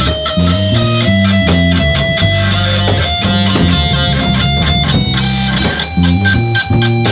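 Live rock trio of electric guitar, bass guitar and drums playing a dense, loud passage, with low notes changing about every half second under sustained guitar tones and frequent hits.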